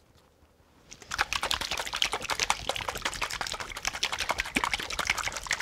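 Lemon-garlic-chive vinaigrette shaken hard in a tall lidded container: the oil, lemon and garlic slosh and rattle rapidly, starting about a second in. Shaking it emulsifies the freshly added oil into the dressing.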